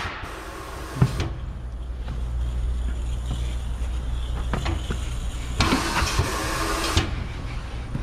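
Pneumatic bead breaker on a tire changer, hissing air as it is worked against the tire sidewall: about a second at the start, ending in a sharp knock, then again for about a second and a half some five and a half seconds in. A low steady hum runs underneath.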